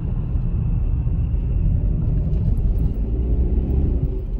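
Steady low rumble of a car driving, heard from inside the cabin: engine and tyre noise as the car turns off the road.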